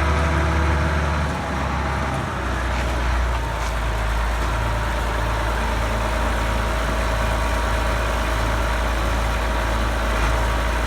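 Tractor engine running steadily with a deep, even drone.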